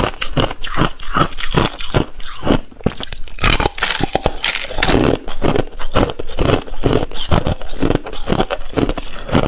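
Hard ice being bitten and chewed close to the mouth: a steady run of crunches about three a second, with a sharper crackling bite into a fresh chunk a little before the middle.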